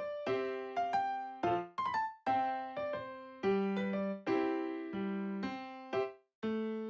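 Background music: a light piano or electric-piano tune of struck chords, each decaying before the next.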